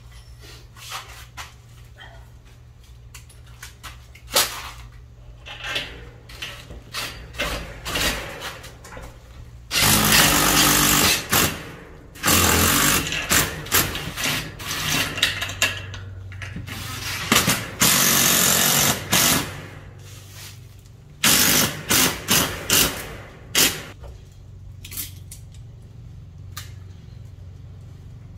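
A handheld power tool run in several bursts of one to two seconds, with knocks and clicks from handling the metal door frame before and between them.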